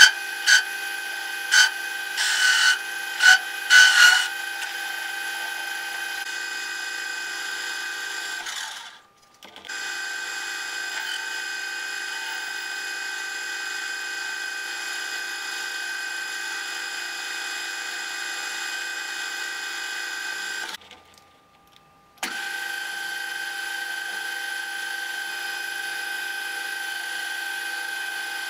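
CQ9332A metal lathe running, its drive giving a steady whine of several held tones while the tool turns metal, with a few sharp clicks in the first four seconds. The sound drops away for about a second twice, near a third of the way in and again about three-quarters through.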